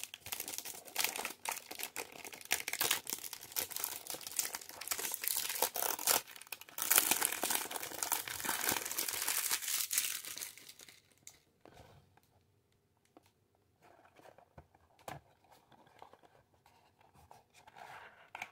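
Clear cellophane wrap being torn and peeled off a cardboard perfume box, crinkling steadily for about ten seconds. After that it goes much quieter, leaving only faint scattered taps and scrapes as the bare cardboard box is handled and its top flap is opened.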